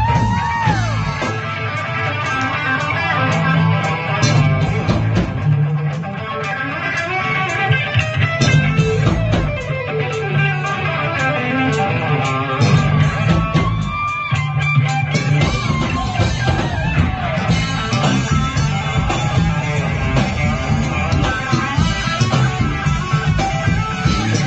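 Live rock band: an electric guitar through a Marshall amp plays a lead solo with fast runs and string bends, opening on a bent note, over drums and bass.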